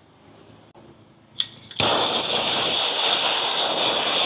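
Handheld propane torch lighting: a sharp click a little over a second in, then about half a second later the flame catches and runs with a steady, loud hiss.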